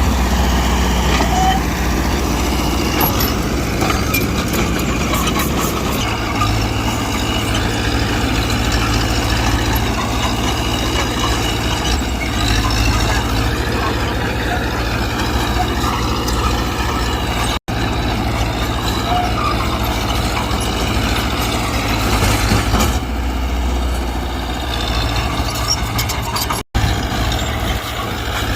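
Diesel engine of a Mitsubishi BD2G crawler bulldozer running under changing load, its pitch rising and falling. The sound cuts out abruptly for an instant twice, in the second half.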